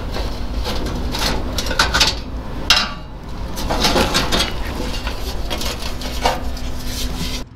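Thin sheet-metal grille panels on an Oliver Super 55 tractor clanking and rattling as they are pried loose with a screwdriver and lifted off, in a series of irregular sharp metallic knocks. A steady low hum runs underneath.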